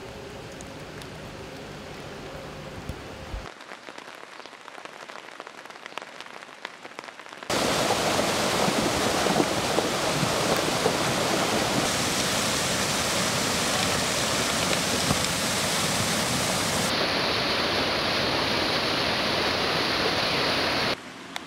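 Rain and floodwater: a quieter patter of rain for the first few seconds, then from about seven seconds in a loud, steady rush of a floodwater torrent surging down a street, which cuts off abruptly just before the end.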